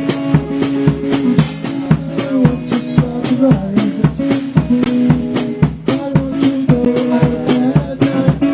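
A band playing a song: a drum kit keeps a steady beat under guitar and bass notes.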